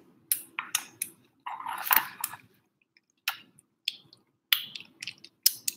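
Kitten eating wet cat food from a bowl: irregular wet smacking and chewing noises, with a longer, louder stretch about two seconds in. It is eating too fast, face pushed into the food.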